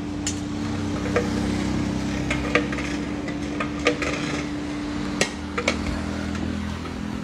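Large metal ladle stirring sugar into a huge pot of boiling tea, knocking against the pot with several sharp metal clanks at irregular intervals, over a steady low hum.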